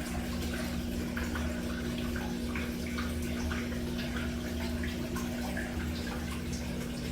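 Washing machine running with a steady hum and water gurgling and splashing inside, as it drains its wash water.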